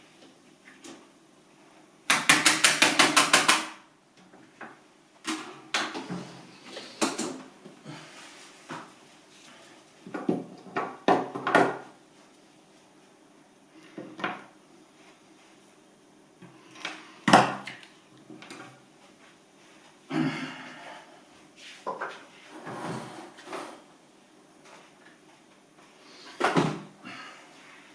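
Scattered knocks and clatter of objects being handled, with a loud rapid rattle lasting about a second and a half near the start.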